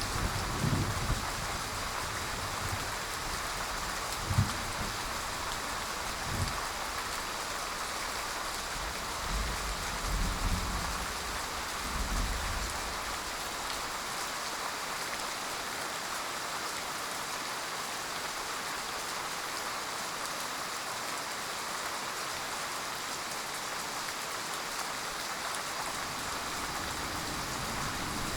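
Steady heavy rain falling. Several short low rumbles of distant thunder in the first half, dying away after about thirteen seconds, leaving only the rain.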